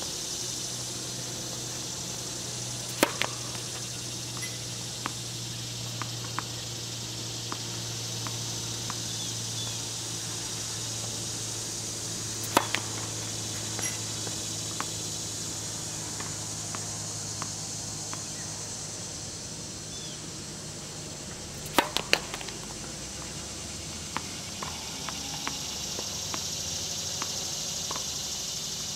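Tennis serves on a hard court: three loud, sharp racket-on-ball strikes about nine seconds apart, each followed closely by a smaller knock or two. Between them come light ticks of the ball being bounced on the court, over a steady high hiss.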